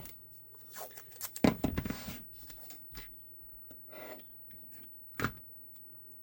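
Workbench handling sounds as small blocking pieces are placed on a holster mold: irregular rubbing and scraping, loudest about a second and a half in, with a sharp knock near the end.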